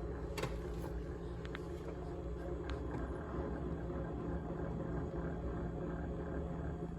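GE GTH18XCTZRBB refrigerator running with a steady low hum and a rattling buzz, plus a few light clicks in the first three seconds.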